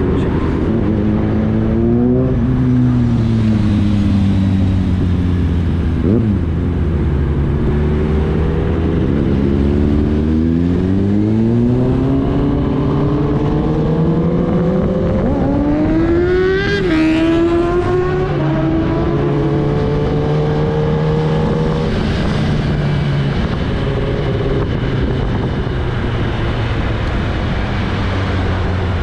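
Kawasaki Ninja ZX-10R's inline-four engine heard from the rider's seat, its revs rising and falling as it accelerates and changes gear. There is a sharp climb in revs a little past halfway, then it runs steadily.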